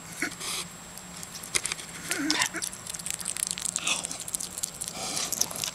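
Albino hedgehog chewing a worm: irregular crunchy bites and wet clicking smacks, coming in clusters.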